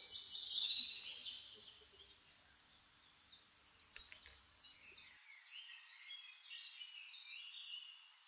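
Small birds chirping and calling in quick, high-pitched phrases, busiest in the first second or so and picking up again after about five seconds, over a faint outdoor background.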